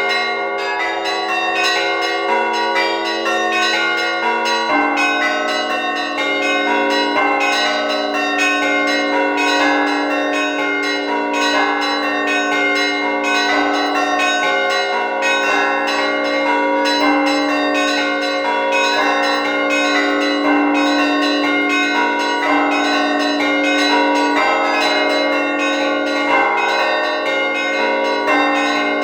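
Orthodox church bells rung in a festive peal: several smaller bells struck in a rapid, continuous pattern, layered over a deeper bell that is struck every one to two seconds from about five seconds in.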